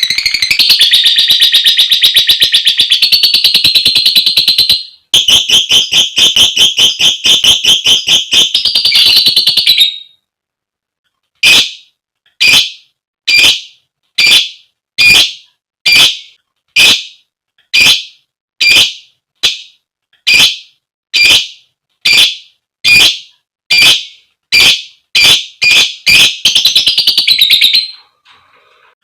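Female lovebird with shrill, fast chattering trills (ngekek) for about ten seconds, broken once briefly. It then gives a run of sharp single 'koek' calls about one and a half a second, with another short trill near the end.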